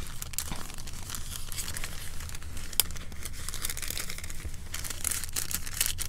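Paper rustling and crinkling as paper tags and cardstock pieces are handled and slid into a paper pocket, with many small, irregular crackles.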